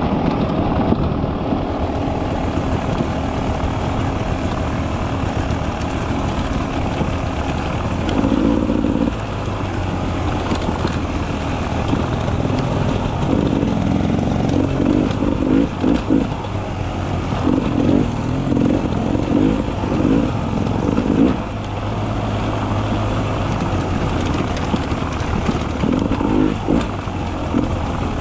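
Beta 300 RR two-stroke enduro motorcycle engine running under way, its revs rising and falling with the throttle. It has a run of short, sharp throttle bursts in the second half.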